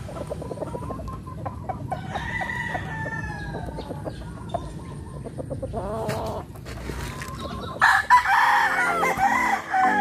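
Gamefowl chickens clucking and calling in repeated short notes. A rooster crows loudly about eight seconds in.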